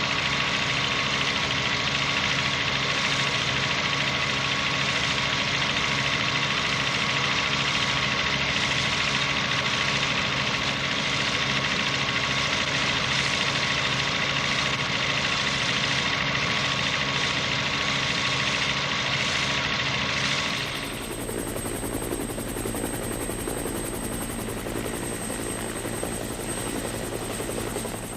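Rescue helicopter running steadily close to the microphone: a continuous rotor and engine noise with steady whining tones. About 21 seconds in the sound changes abruptly to a quieter, rougher noise.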